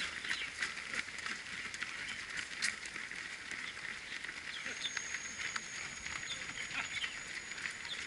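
Running shoes slapping on an asphalt road as a stream of race runners passes close by, many irregular footfalls over a steady background hiss. A thin, steady high tone joins about five seconds in.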